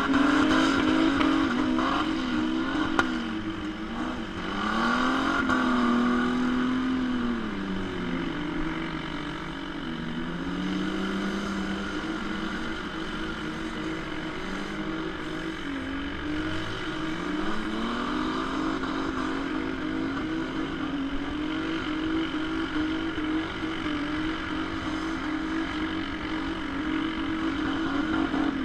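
Demolition derby car engines revving, their pitch repeatedly falling and rising as they back off and accelerate.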